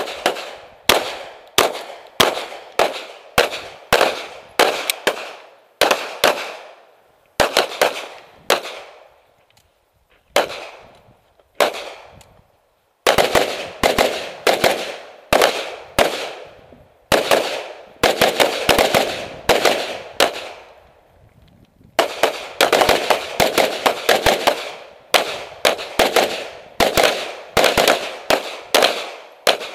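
Strings of gunshots from pistols and rifles being fired in quick drills, often several shots a second, each with a short echoing tail. The firing pauses briefly a few times and is densest near the end.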